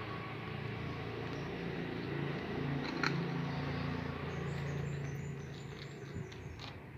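A steady low motor drone, fading near the end, with a single sharp click about three seconds in and a few faint high chirps in the second half.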